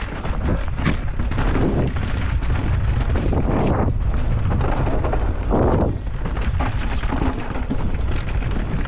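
Wind buffeting the microphone over the rumble of a Pivot Shuttle LT electric mountain bike riding fast down dirt singletrack, with tyres on dirt and a running clatter of knocks and rattles from the bike over roots and bumps.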